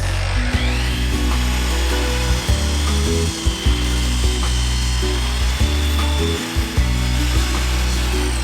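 Power tool motor spins up with a rising whine, runs steadily with a noisy hiss, and winds down near the end, over background music.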